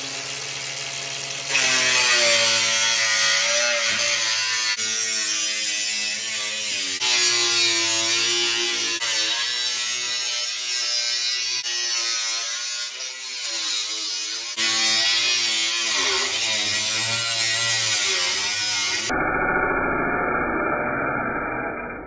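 Cordless angle grinder with a thin cut-off wheel slicing through a Subaru 2.2-litre steel oil pan to shorten it; the motor's pitch keeps shifting as the wheel loads up in the cut. About three seconds before the end the sound turns abruptly duller and muffled.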